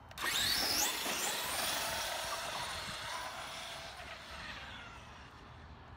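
Traxxas X-Maxx RC monster truck, running its 1600 kV brushless motor on 8S, accelerating flat out on a speed run. A sudden rush of motor whine and tyre noise climbs steeply in pitch in the first second, then fades steadily as the truck gets farther away.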